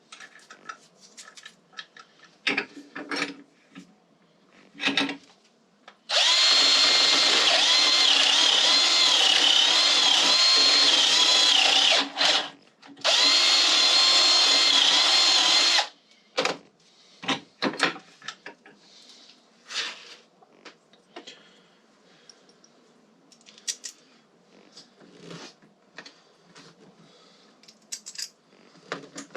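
Power drill running in two long bursts, about six seconds and then about three seconds, its whine dipping slightly in pitch under load, with scattered clicks and knocks of parts being handled before and after.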